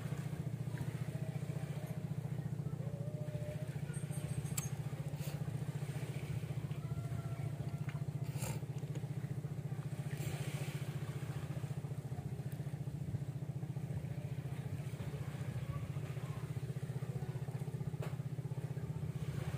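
A small engine running steadily at an even speed, with a low, rapid chugging that neither rises nor falls in pitch.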